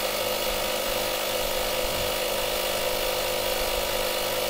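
RoadTek digital portable air compressor running steadily as it inflates a car tire, an even mechanical drone at constant level. The tire is at about 34.5 PSI, nearing the 36 PSI auto shut-off setting.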